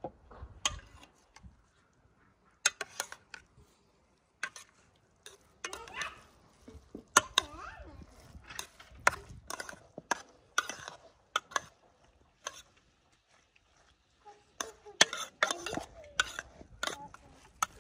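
Metal fork clinking and scraping against an enamel pot as cooked rice is fluffed and stirred, in irregular sharp clicks with short scrapes between them.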